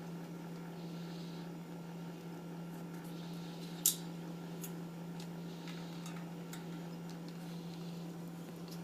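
Eclectus parrot's beak clicking and tapping at ice in its water dish: scattered light clicks, with one sharper click about four seconds in, over a steady low hum.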